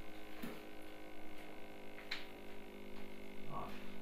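Steady electrical hum on the recording, with a few faint short clicks or knocks.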